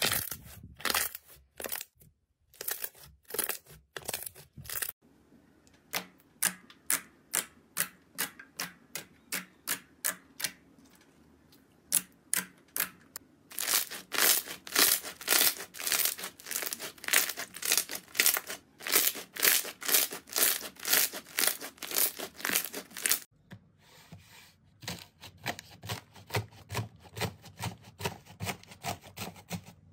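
Slime squeezed and pressed by hand, giving a steady run of sharp pops and clicks, a few a second and quicker about halfway through. After a cut about three-quarters of the way in, fluffy slime pressed in a glass dish gives a softer, denser crackling and tearing.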